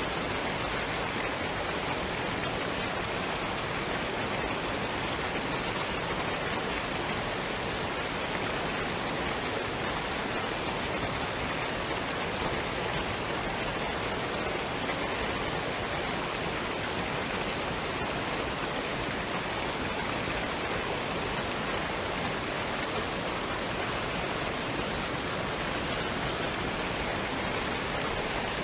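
Waterfall and stream water rushing in a steady, even hiss with no breaks.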